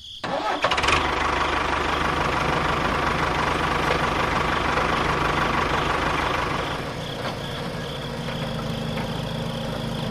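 Steady engine-like running, starting about half a second in, easing a little in level about seven seconds in.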